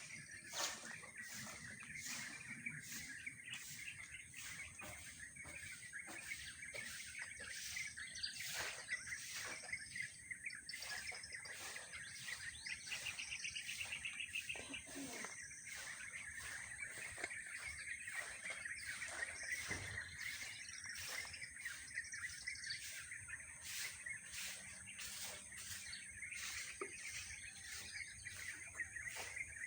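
Many birds chirping and twittering in a dense, continuous chorus of short sharp calls, with a brief fast trill about thirteen seconds in.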